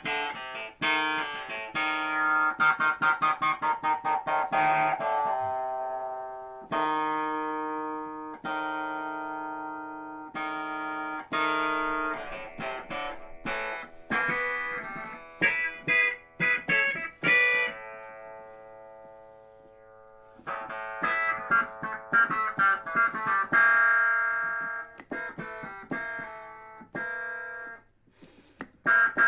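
Vintage electric keyboard played through a Boss Spectrum SP-1 pedal: chords and quick runs of struck notes that each decay, with one long chord fading out near the middle and a brief break near the end.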